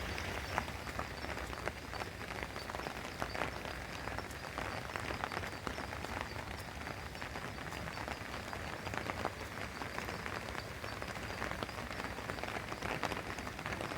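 Steady rain falling, an even hiss with many small drop clicks throughout.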